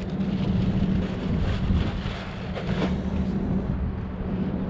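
Wind rumbling on the microphone over a steady low hum, with a few faint ticks.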